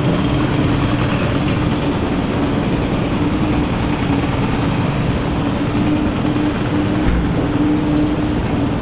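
A large engine running steadily: a constant hum over a loud, even rumble and hiss.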